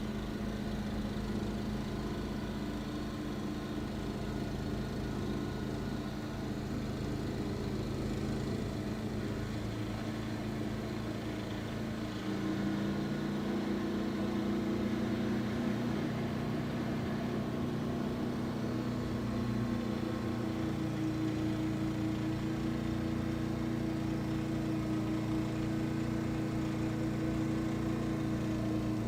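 Snow blower's small petrol engine running steadily. About twelve seconds in, its note steps up slightly and gets a little louder, then holds.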